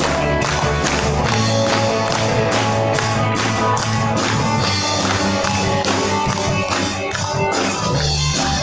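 Worship band playing an upbeat song with a steady beat and tambourine.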